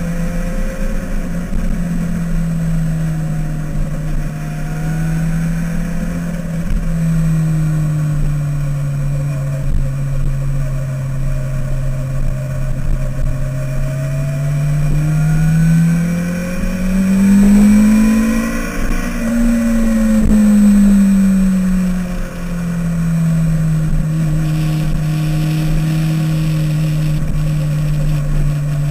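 Motorcycle engine heard from an onboard camera at track speed. Its note holds steady and sags slightly, then rises over a few seconds a little past halfway and falls back to its earlier pitch.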